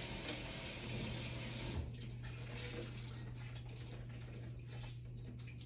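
Water running from a tap as a microfiber cloth is wetted under it, shut off about two seconds in; a steady low hum continues underneath.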